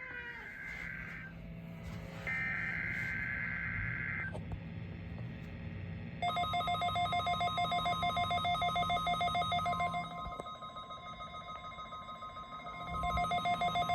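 NOAA Weather Radio weekly test signal: two warbling SAME digital header data bursts, then from about six seconds in the steady 1050 Hz warning alarm tone. A fast pulsing electronic beeping is layered over the tone; it weakens for a few seconds and comes back near the end.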